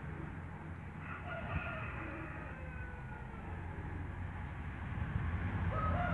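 A rooster crowing: one long call about a second in, and another starting near the end, over a steady low rumble.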